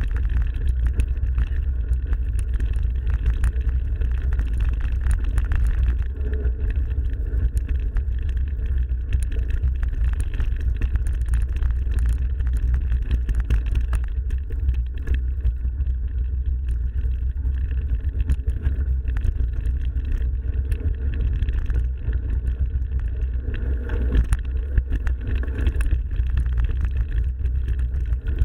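Mountain bike rolling over a forest trail: steady tyre and drivetrain noise with frequent small rattles and knocks from bumps, under a strong low wind rumble on the action camera's microphone.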